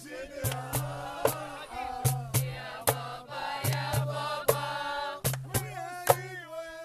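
Music: several voices singing together over sharp percussion hits and a steady low bass note.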